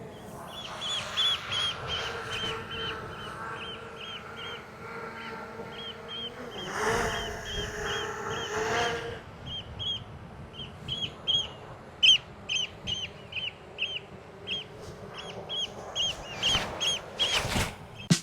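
Eurasian oystercatchers giving shrill piping alarm calls, short sharp notes repeated about two to three a second and getting louder in the second half. A faint steady hum sits underneath for the first half.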